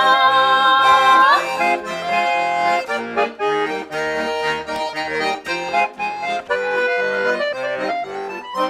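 Garmon (Russian button accordion) playing an instrumental interlude between verses of a folk-style song. The singers' last note is held with a wavering pitch for about the first second and a half before the accordion carries on alone.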